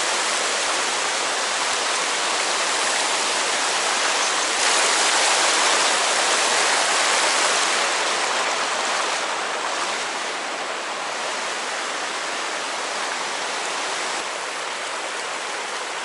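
Shallow mountain stream rushing over rocks in a riffle: a steady rush of water that eases a little after about nine seconds.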